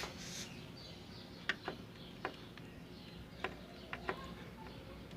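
Scattered small clicks and ticks of a screwdriver working the screws that hold an LG TV's circuit board, about half a dozen in a few seconds. The screws are being tightened because loose board screws are what the repairer blames for the TV switching itself off.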